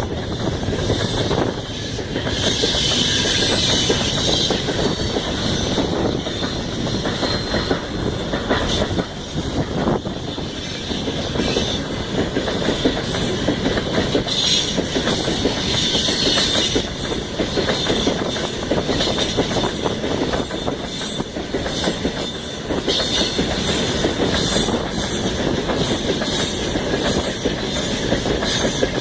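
Freight train wagons rolling past, with a steady clatter of wheels over the rail joints and, now and then, a squeal from the wheels.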